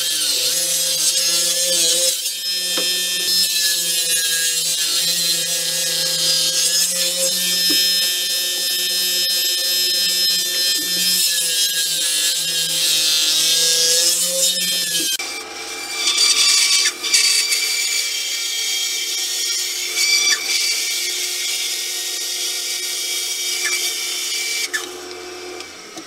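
Table saw running and cutting through a block of ipe hardwood, its blade dirty; the blade's pitch sags a little and recovers several times as the wood is fed. About halfway through the sound changes to a different steady machine whine with a low hum, which drops away near the end.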